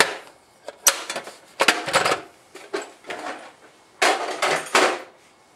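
Steel socket-set box clanking and rattling as it is handled and carried off: the sockets and ratchet shift and knock against the metal case in several bursts, the loudest about four seconds in.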